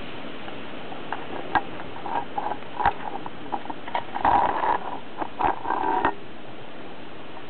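Cat eating wet food from an open metal can: irregular wet chewing and smacking with a few sharp clicks, starting about a second and a half in and busiest about four to six seconds in.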